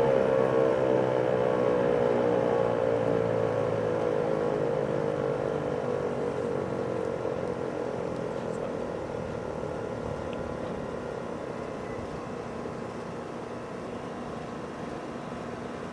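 American Signal T-128 outdoor warning siren winding down at the end of its test cycle: its tone slides slowly lower and fades away over several seconds, leaving faint background noise.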